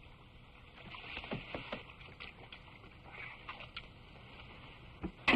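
Canoe paddles dipping and splashing in calm water, faint and irregular, under an old soundtrack's hiss. Two sharp knocks about five seconds in.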